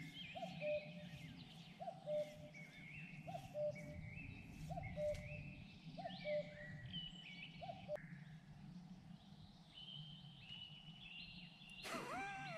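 Wild birds singing: a low two-note call repeats about every second and a half for the first eight seconds, with higher, shorter songs over it throughout. A louder, closer noise comes in near the end.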